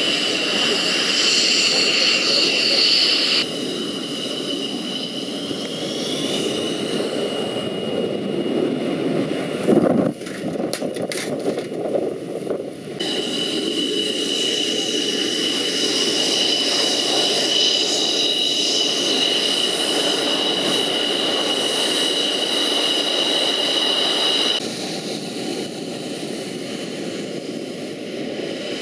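Jet fighters' engines running on the ground, a steady high whine over a broad rumble. The sound changes abruptly in level a few times, with a cluster of sharp clicks near the middle.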